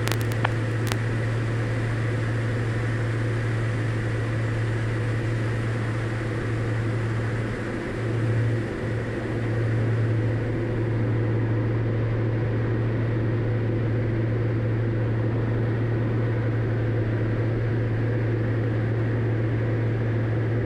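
Diamond DA40's piston engine and propeller droning steadily in cruise, heard from inside the cockpit, with a brief waver about eight seconds in.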